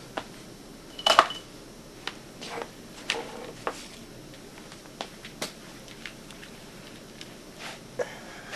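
Tools and small objects being picked up and set down while a work table is cleared: scattered clicks and knocks, the loudest a clatter with a short ring about a second in.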